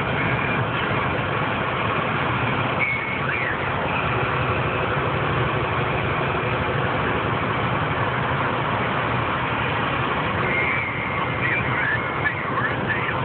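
Steady engine and road noise inside a heavy truck's cab at highway speed. A few brief high squeaks come about three seconds in and again near the end.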